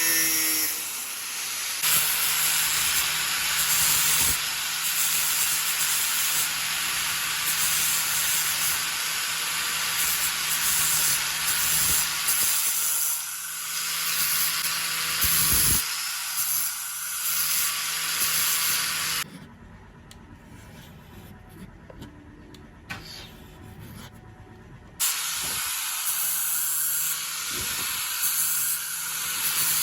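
Small electric power tool running with a steady motor hum and a loud abrasive hiss as it grinds or sands the rusty steel of a pocket knife. It stops for about six seconds about two-thirds of the way through, leaving a few faint clicks, then starts again.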